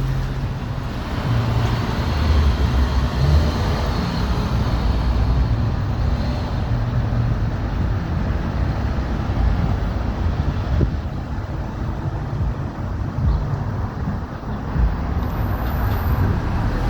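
City street traffic: a steady wash of cars and other vehicles driving past.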